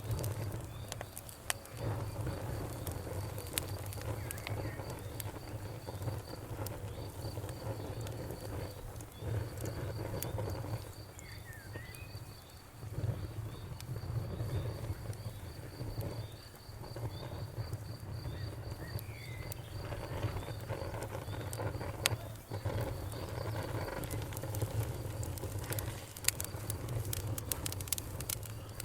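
Campfire crackling and popping over a low steady rumble from the burning wood. An insect chirps in a steady, high, even pulse, stopping near the end, with a few short bird chirps.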